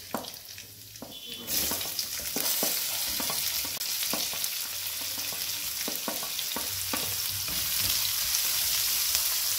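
Chopped onions tipped into hot ghee and oil in a nonstick kadhai, the sizzle jumping suddenly louder about a second and a half in as they hit the fat and then carrying on steadily. A wooden spatula scrapes and taps against the pan as the onions are pushed in and stirred.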